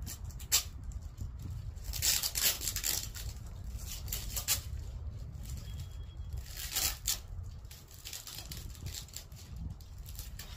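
Irregular scraping and rustling strokes, a few clustered together, over a steady low rumble.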